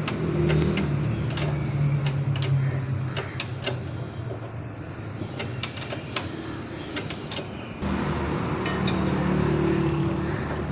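A 17 mm spanner tightening the nut on a motorcycle's silencer, with irregular metallic clicks and clinks. A steady low engine hum runs underneath.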